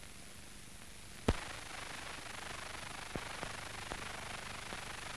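Hiss and crackle of an old optical film soundtrack with no programme sound, with a sharp pop about a second in and a fainter one a couple of seconds later.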